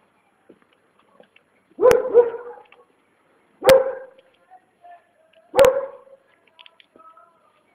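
A dog barking: a quick double bark, then two single barks about two seconds apart.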